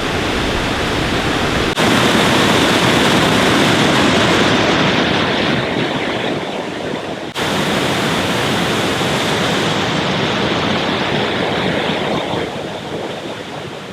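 Waterfalls rushing: a loud, steady wash of falling water. It breaks off for an instant twice, at about 2 s and 7 s, and grows softer near the end.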